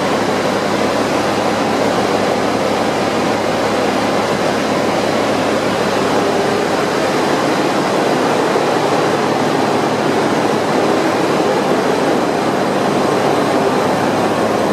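Loud, steady machinery noise of a container ship's engine room, a dense continuous din with several steady low hums running through it.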